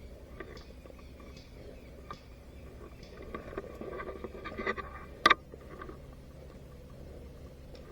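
Rustling and scraping of movement, with scattered faint clicks and one sharp, loud click a little past five seconds in.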